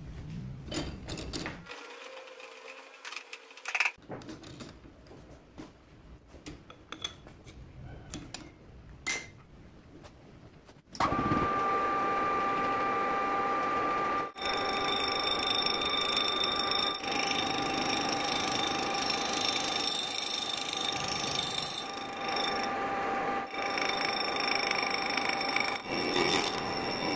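Clinks and knocks of metal parts being handled and fitted into the lathe chuck. About eleven seconds in, the metal lathe starts and the tool cuts the spinning rusty steel sprocket, with a steady ringing whine over the running lathe.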